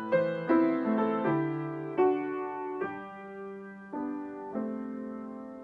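Acoustic grand piano played solo at a slow tempo, in an arrangement with jazz-style extended harmonies. Chords and melody notes are struck every half second to a second, each ringing on and fading before the next.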